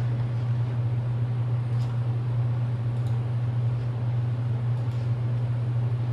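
A steady low hum with a faint hiss, plus a few faint, light ticks.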